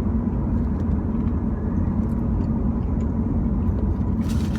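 Steady low road and engine rumble of a moving car heard from inside the cabin.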